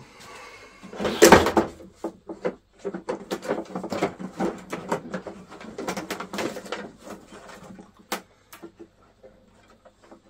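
Hands handling parts and wiring inside an old radio-controlled model boat: a dense run of clicks, knocks and rustling, loudest a little over a second in, thinning out after about seven seconds, with one sharp click about eight seconds in.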